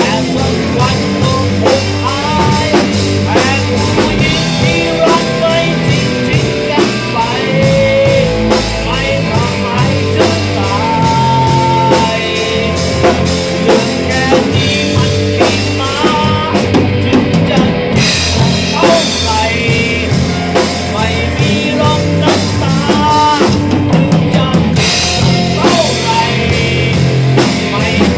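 A rock band playing loud, with drum kit and electric guitar, and a man singing into a microphone over it.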